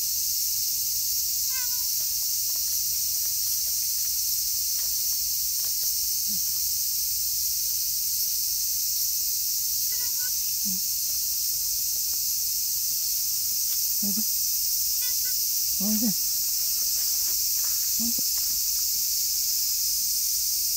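A steady, high-pitched chorus of insects fills the air. Over it come a handful of brief, low voice-like sounds and a few faint chirps.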